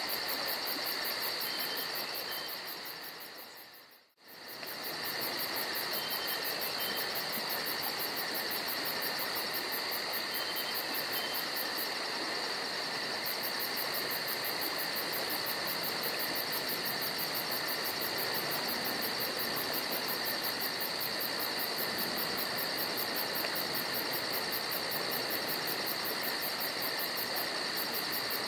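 Steady chorus of chirping insects, a constant high-pitched trill over a background hiss. About four seconds in it fades out almost completely for a moment and comes straight back.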